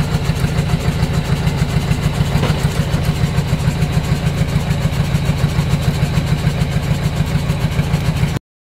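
Heavy diesel truck engine idling steadily with an even, regular pulse. It cuts off abruptly near the end.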